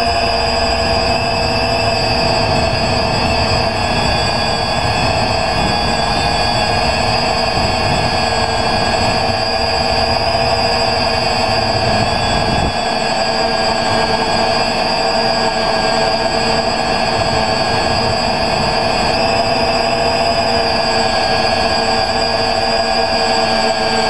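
Quadcopter's electric motors and propellers whining steadily in flight, heard close from the craft itself: several held tones drifting slightly in pitch over a low rumble that drops away about halfway through.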